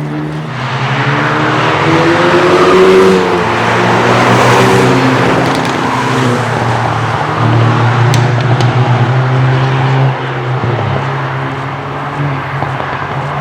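Cars driving past one after another on a racetrack, their engine notes rising and falling through gear changes. Two sharp exhaust pops come about eight seconds in.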